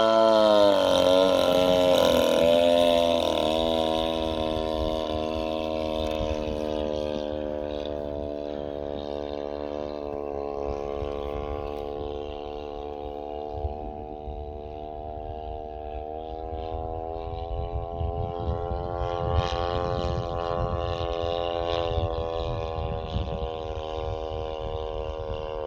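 The 40cc twin-cylinder boxer two-stroke engine of an RC plane in flight, running steadily. It is loudest at the start, where its pitch drops sharply and wavers as the plane passes. Then it settles into an even drone that fades a little and swells again as the plane circles.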